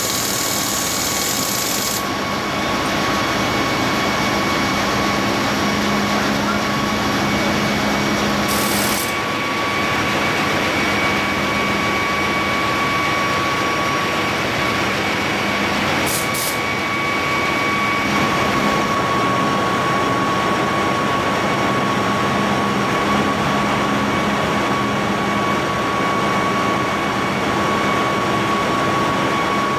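Ship's engine-room machinery running: a steady loud hum with a constant whine, broken twice by short high hisses.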